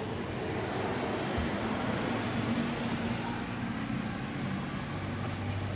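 Steady motor-vehicle and traffic noise: an engine running with a wash of road sound, and a low hum settling in near the end.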